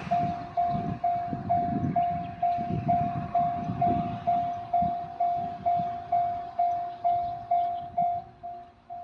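Japanese level-crossing warning bell ringing at about two strokes a second while a four-car 105 series electric train runs past over the crossing with a low, pulsing rumble of wheels. The train noise fades after about five seconds, leaving the bell ringing on.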